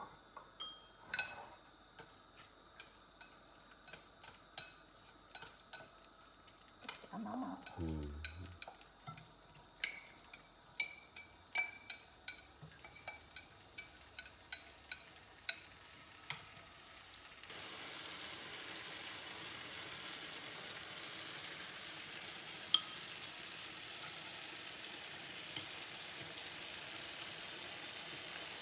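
Chopsticks clicking against a ceramic bowl and a frying pan while stirring, in irregular taps. About two thirds of the way in, a steady sizzle of diced tomatoes frying in the pan starts suddenly and continues.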